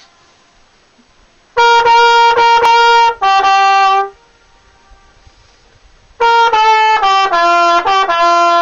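Music: a solo brass instrument, trumpet-like, plays two phrases of held notes, the second stepping downward in pitch.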